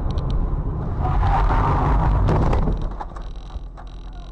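Dash-cam car driving on a rough dirt track: steady road and engine noise, with a few sharp knocks about two and a half seconds in, after which it turns quieter.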